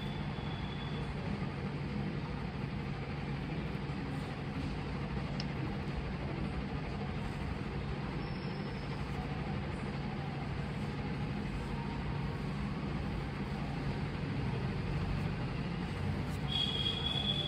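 Steady low hum and rumble of background noise, with a few short high squeaks near the end.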